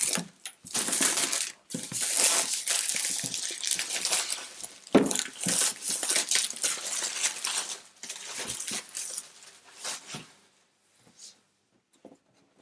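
Clear plastic shrink wrap crinkling and crackling as it is pulled off a cardboard game box, with a sharper snap about five seconds in. The crinkling thins to a few handling noises and stops about ten seconds in.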